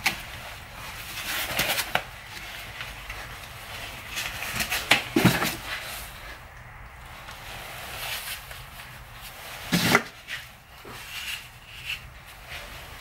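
Scattered knocks, clicks and scraping from hands-on work on a car's rear exhaust silencer, with sharper knocks about two, five and ten seconds in.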